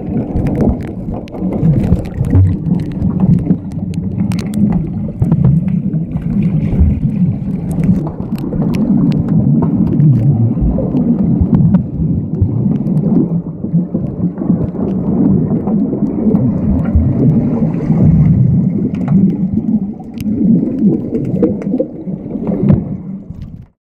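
Underwater sound picked up by a submerged camera during an underwater hockey game: a dense, muffled rumble of churning water and bubbles, with many sharp clicks and knocks scattered through it. It cuts off suddenly near the end.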